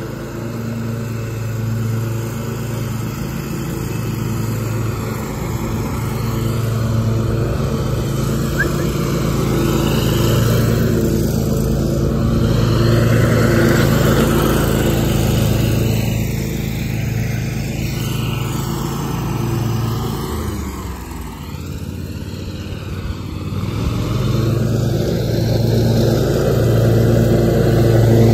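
Scag Tiger Cat II zero-turn mower's V-twin engine running steadily at mowing speed with the deck cutting grass. About twenty seconds in the engine note dips lower and softer for a couple of seconds, then comes back up.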